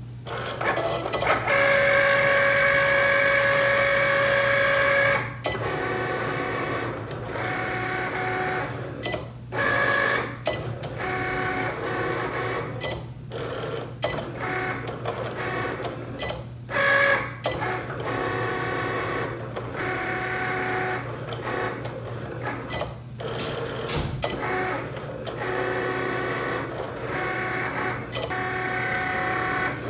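Vinyl cutting machine cutting a design: its motors whir in short runs of steady pitch that stop and start every few seconds, the first run the longest, over a steady low hum.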